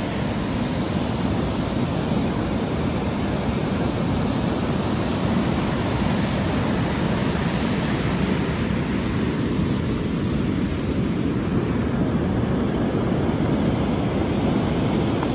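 River rapids rushing over rocks: a steady, even roar of white water with no breaks.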